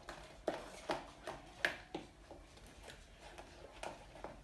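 Slime being stirred in a bowl after Fun-Dip powder has been added: a utensil clicking against the bowl about twice a second, the clicks softer in the second half.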